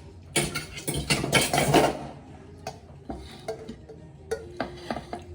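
Kitchen dishes and cutlery being handled: a burst of clattering in the first couple of seconds, then scattered clinks and knocks.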